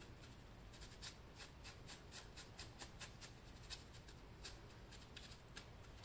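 Faint, irregular light clicks and rubbing from hands handling a clear acrylic stamp block with a clear bunny stamp on it, several small ticks a second.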